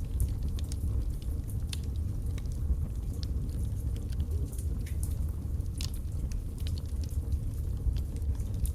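Wood fire burning in a fireplace: logs crackling with frequent sharp pops over a steady low rumble of the flames.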